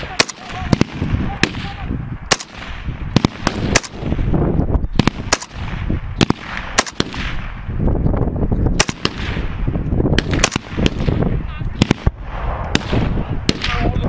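Small-arms gunfire: many sharp rifle shots at irregular intervals, singly and in quick runs, some close and very loud.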